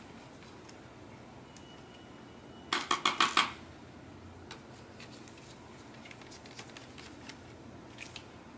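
A brief metallic clatter of about six quick clinks about three seconds in, followed by scattered light ticks: small metal parts knocking together as the laptop screen assembly and its screws are handled.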